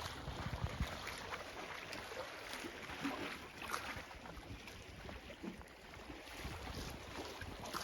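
Wind buffeting the microphone in gusts, over a steady hiss of sea and wind, with a few faint ticks.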